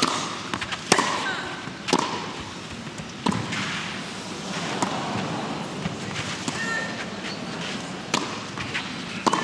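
Tennis rally on a clay court: a serve, then racquet strikes on the ball going back and forth about every one to one and a half seconds, over faint crowd noise.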